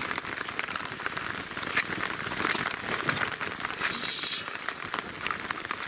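Rain pattering on an umbrella, a steady crackly patter of drops, with a brief louder hiss about four seconds in.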